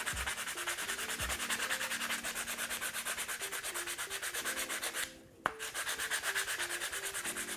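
Coarse P40 sandpaper on a cork block rubbed rapidly back and forth over the end of a wooden broomstick-dowel lure body, rounding off its edge. The strokes stop briefly about five seconds in, with a single click, then go on.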